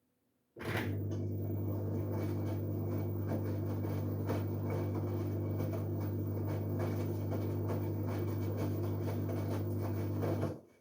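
LG Direct Drive 8.5 kg washing machine running mid-wash: a steady low hum that starts abruptly about half a second in and cuts off about ten seconds later, with faint irregular ticking over it.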